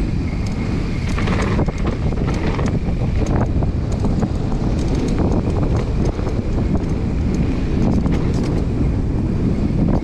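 Wind rushing over the microphone of a GoPro on a moving mountain bike, a steady loud rush, with short clicks and knocks scattered through it from the bike rattling over the trail.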